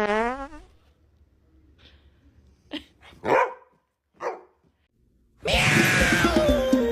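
A dog barking a few short, separate barks. Near the end a loud, noisy sound with falling tones starts suddenly and keeps going.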